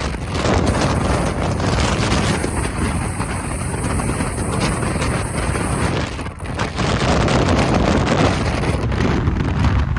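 Loud car engine and exhaust noise at a car meet, with wind buffeting the microphone, holding steady and dipping briefly about six seconds in.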